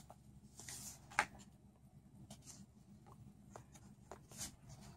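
Faint rustling and light taps from a sketchbook's paper pages being handled and turned, with a soft swish just under a second in and another near the end.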